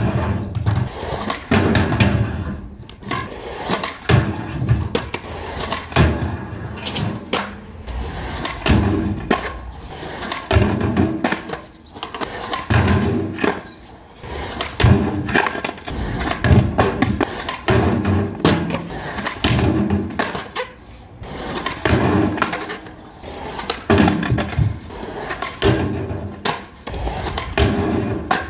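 Skateboard rolling on concrete, with repeated pops, grinds on a funbox ledge and board landings, over background music.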